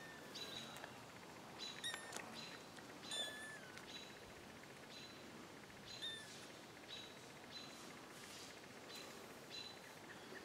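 A bird calling: faint, short, high chirps repeated steadily about every half-second, with a few longer falling notes mixed in.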